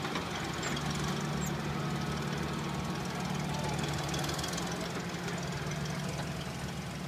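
Engine of a lifted 1999 Jeep Cherokee XJ running at low revs with a steady low hum as the Jeep crawls slowly over boulders.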